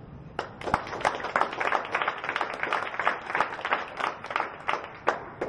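A small audience applauding: many hands clapping unevenly, starting about half a second in and dying away at the very end.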